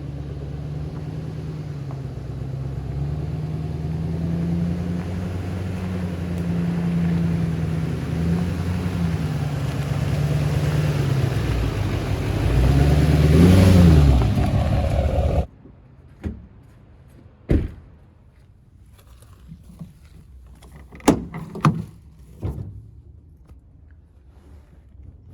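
An engine running steadily with a wavering pitch, revving up and back down near the end before it cuts off abruptly. A few sharp knocks follow in the quiet afterwards.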